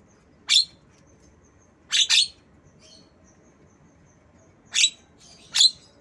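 Javan myna giving short, shrill calls in imitation of a lovebird: five sharp chirps at uneven intervals, two of them in quick succession about two seconds in.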